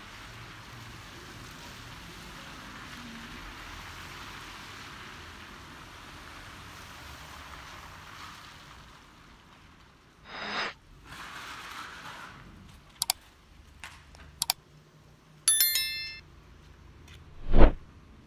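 Wet city street ambience: a steady hiss, like tyres on wet asphalt, that fades out after about nine seconds. It is followed by scattered clicks and knocks, a brief bright metallic ring about two-thirds of the way through, and a single heavy thump near the end, the loudest sound.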